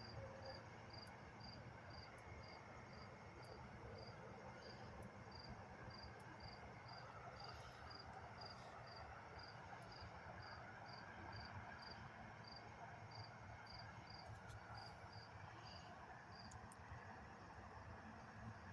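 Faint cricket chirping, a short high chirp repeated evenly about twice a second, over a faint low hum.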